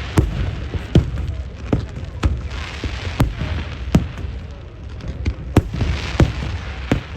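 Fireworks going off: sharp bangs about one to two a second at uneven spacing, over a continuous crackling hiss.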